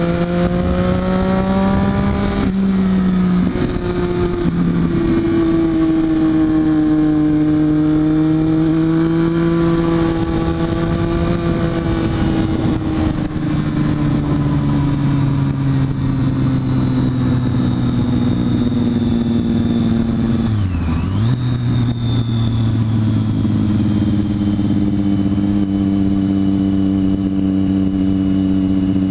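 Triumph Daytona 675R motorcycle's 675 cc inline-three engine running, its pitch rising and falling slowly, with one brief sharp drop in revs and recovery about twenty seconds in.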